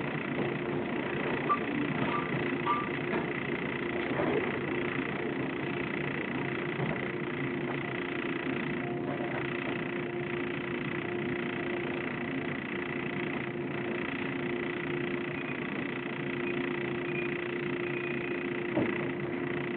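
Series 115 resistance-controlled electric multiple unit standing at a station, heard from inside the passenger car: a steady hum from the car's onboard equipment with two constant tones that do not change in pitch, and a few light clicks.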